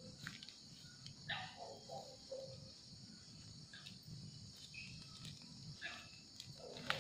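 Night-time insect chorus of crickets, a steady high shrill, with a few short lower calls about a second in and again near the end, and scattered faint clicks.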